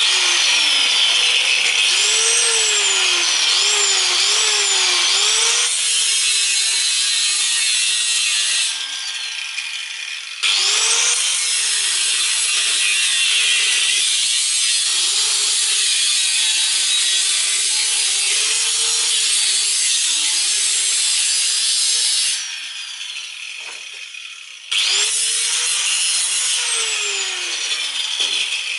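Power tool running under load with a loud grinding hiss, its motor pitch dipping and recovering about once a second. It cuts off abruptly twice, for a couple of seconds each time, and starts again.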